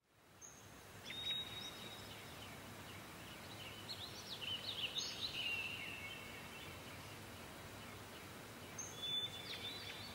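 Small birds chirping and calling over a faint steady background hiss, with a few short calls about a second in, a busier run of chirps in the middle, and a couple more near the end.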